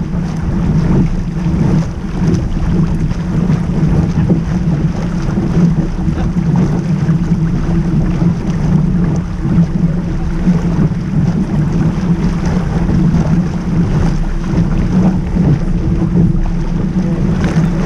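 Steady wind blowing over the microphone, mixed with water rushing along the hull of a sailboat under way.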